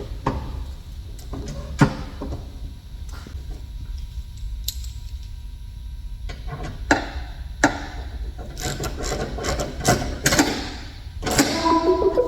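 Hand tools clinking and knocking on the exhaust clamps and hangers of a 1969 Boss 302 Mustang, irregular metallic clicks over a low steady hum, as a part is secured against rattling. Music comes in near the end.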